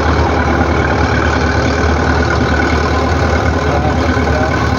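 Crawler bulldozer's diesel engine running steadily at close range while the dozer pushes sandy earth with its blade.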